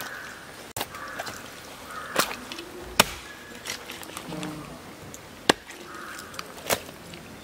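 A curved chopping knife hacking through duck bone and meat into a wooden chopping block: about five sharp chops at irregular intervals, with softer knocks between.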